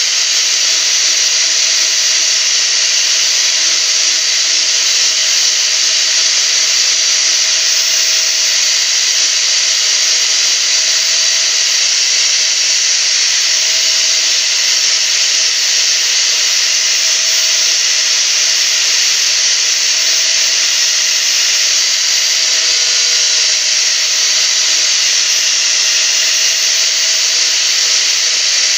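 Electric angle grinder running steadily, its disc grinding and shaping a small block of wood into a carved bird. The whine and rasp go on without a break.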